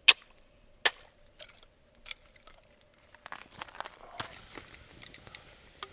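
Wood being chopped, likely with a hatchet: two sharp strikes a little under a second apart, the first the loudest, then a few fainter knocks. From about three seconds in, quieter crunching and rustling runs on.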